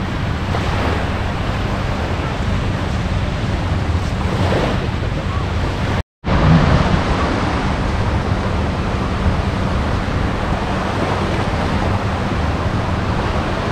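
Small waves washing onto a sandy beach, heard as a steady rush mixed with wind rumble on the microphone. The sound drops out briefly about six seconds in.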